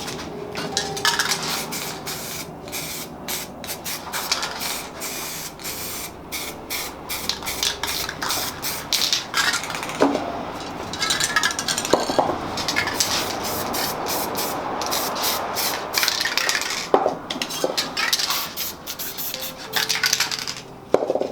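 Spray paint cans hissing in many quick short bursts, with rubbing and scraping sounds and a few sharp clicks between them.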